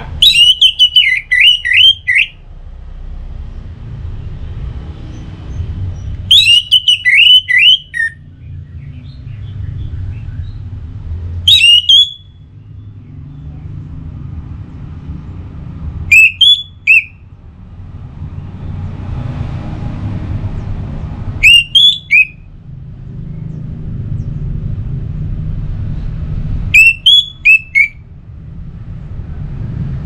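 Orange-headed thrush (anis merah) singing: six short, loud phrases of quick gliding notes, one about every five seconds, with a low steady rumble in the background between them.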